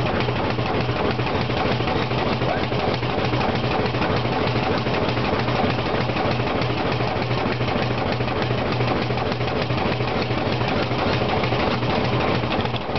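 Class H2/3 steam rack locomotive running on the Brienz Rothorn line, heard close beside its running gear: a steady mechanical clatter of rods and wheels over a low hum that pulses at a regular rate.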